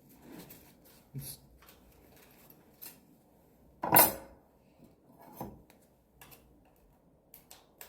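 Scattered metallic clinks and knocks from handling the reciprocating saw and its blades, with one sharp knock about four seconds in and a smaller one shortly after.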